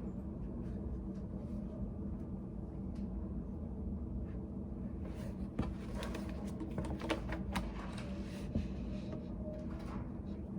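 Study cafe room ambience: a steady low hum, with a scattering of small clicks and taps about halfway through.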